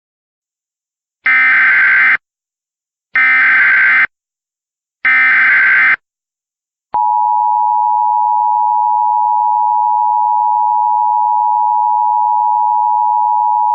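Emergency Alert System activation: three short bursts of SAME digital header data, about two seconds apart, then, about seven seconds in, the steady two-tone EAS attention signal begins and holds unbroken.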